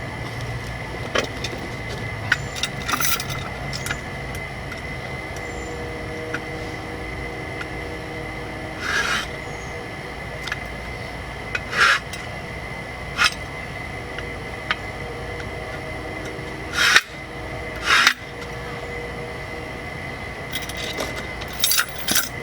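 Hardware and packaging being handled: scattered clicks, knocks and short scraping or rubbing noises over a steady background hum with a faint high tone.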